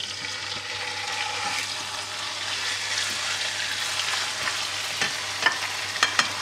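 Raw chicken mince sizzling in hot oil in a non-stick wok as it is stirred with a silicone spatula, a steady frying hiss with a few short clicks near the end.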